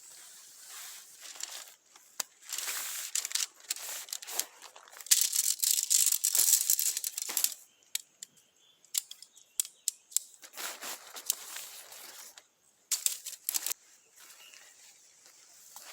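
Bursts of rustling and crinkling, as of material being handled, loudest in the middle, broken by scattered sharp clicks and snaps.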